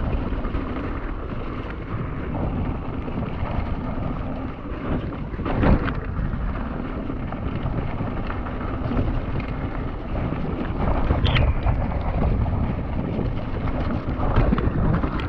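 Mountain bike riding down a wet trail, recorded on a GoPro: steady wind noise on the microphone over the rumble and rattle of the bike on rough ground, with sharper knocks about six and eleven seconds in.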